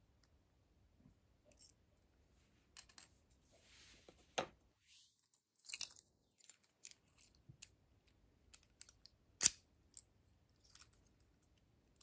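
Small metallic clicks and taps from a brass lock cylinder and its key being handled, scattered and irregular, with the sharpest clicks about four and a half seconds in and about nine and a half seconds in.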